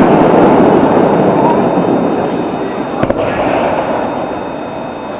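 Fireworks display bursting close overhead: a loud, dense crackle that slowly fades, with one sharp bang about three seconds in.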